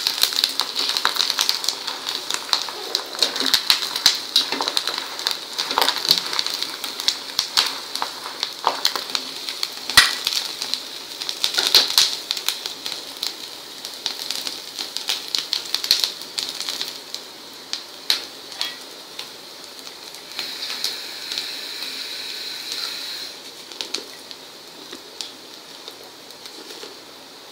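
Hot oil crackling and sizzling as a steel strainer of deep-fried sago pearls is lifted out of the wok and held over it to drain, with a few sharper clicks. The crackling thins out and fades toward the end.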